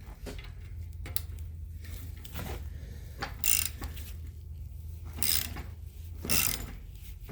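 Hand tools working a seized brake bracket slider pin: a series of irregular ratchet-like metal clicks and scrapes, the loudest about halfway through, over a steady low hum.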